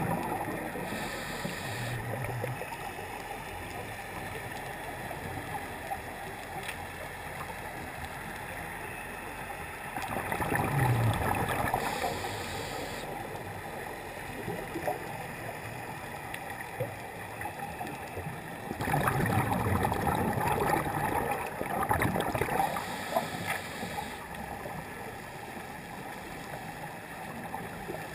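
Scuba regulator breathing heard underwater through a GoPro housing: short hissing inhalations and two long, loud bursts of bubbling exhaust, about ten and nineteen seconds in, over a steady underwater hum.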